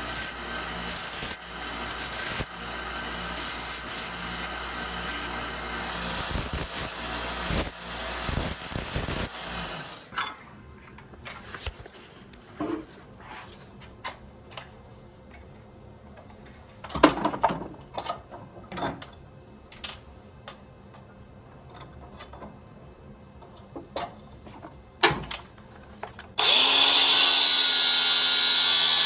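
Belt sander running, grinding a short piece of steel coat-hanger wire to a point. It stops about ten seconds in and is followed by scattered clicks and knocks of handling. Near the end it starts up again suddenly and runs loud and steady.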